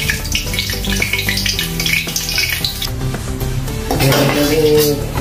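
Metal wok ladle clinking and scraping against a wok while hot oil sizzles, stirring as the sauté begins. Background music plays underneath.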